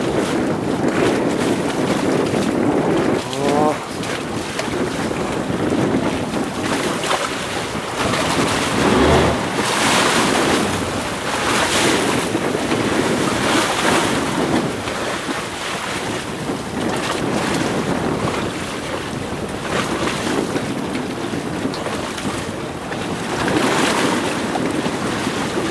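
Wind buffeting the microphone over open sea, with waves washing against a small boat, in gusts that are strongest around the middle.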